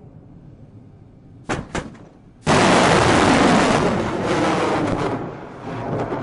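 Two sharp cracks, then a sudden loud roar from an S-300 surface-to-air missile launch, holding for a couple of seconds before fading.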